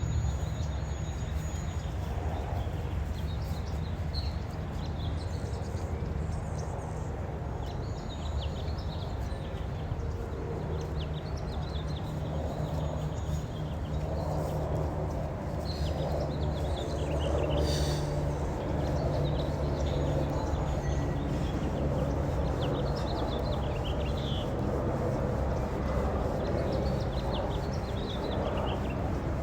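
Wild birds chirping in short, scattered calls over a steady low rumble.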